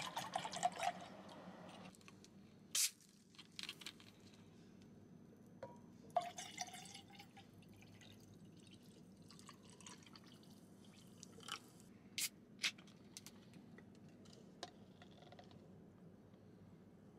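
Whisky pouring from a bottle into a stainless steel tumbler for about two seconds. A few sharp clicks follow, then a shorter, quieter pour of soda water, with scattered clicks later on.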